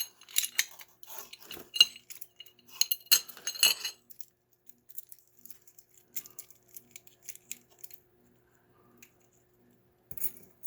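Metal deadbolt keys clinking and jingling as they are handled, with a cluster of bright clinks in the first few seconds. Sparser small metallic clicks follow, then a brief clatter near the end.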